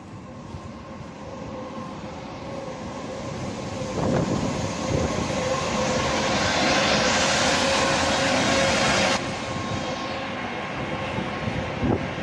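Electric locomotive hauling passenger coaches runs past close along the platform, with a steady whine over rolling noise that grows louder. A loud hissing rush builds about seven seconds in and cuts off suddenly a couple of seconds later.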